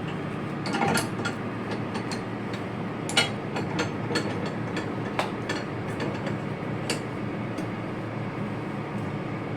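Scattered metallic clinks and knocks as a steel wire rope and thimble are handled for a splice, over a steady low machinery hum.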